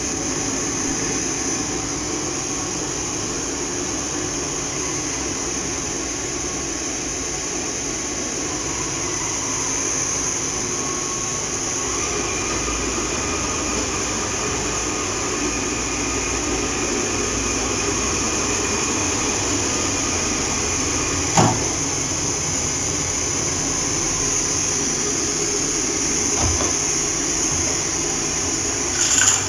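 Xiaomi Mi Robot Vacuum-Mop Essential running, a steady motor and suction whir with a high hiss. A sharp knock about two-thirds of the way through, and lighter knocks near the end.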